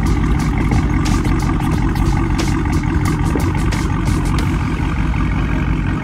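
Loud vehicle engine running with a dense run of sharp pops and cracks over it, which stop about four and a half seconds in.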